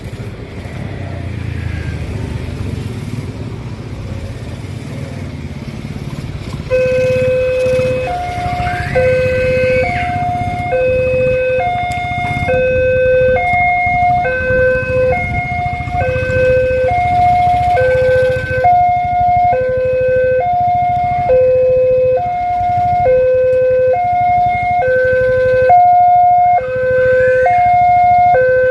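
Railway level-crossing warning siren starting about seven seconds in: a two-tone hee-haw, switching back and forth between two pitches about once a second, over the steady rumble of road traffic.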